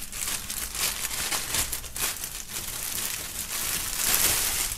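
Clear plastic bag crinkling as hands open it and pull out a folded T-shirt, a little louder about four seconds in.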